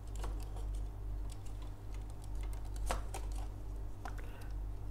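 Small plastic clicks and rubbing as fingers handle and move the head parts of a Figure-rise Standard Amplified Omegamon X-Antibody plastic model kit, with one sharper click about three seconds in, over a steady low hum.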